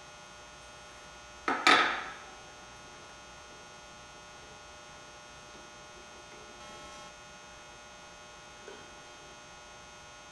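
A short loud metallic clatter about one and a half seconds in, from a wrench working the mounting bolts of the snowplow's hydraulic pump, over a steady electrical hum.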